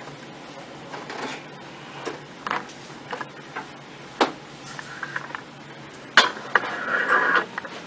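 Scattered light clicks and knocks from an inversion table's frame and fittings as it is used, with a sharp click about six seconds in followed by a short creaking rasp.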